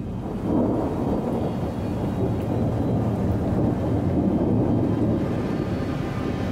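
Thunderstorm ambience: a low rolling rumble of thunder with rain hiss, swelling about half a second in and then holding steady.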